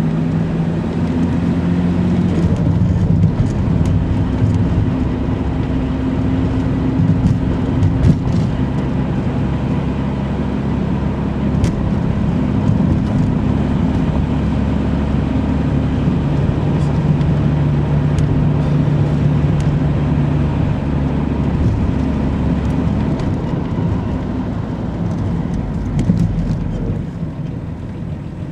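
Car engine and tyre noise while driving, the engine note shifting in pitch several times with changes of speed and getting quieter near the end as the car slows.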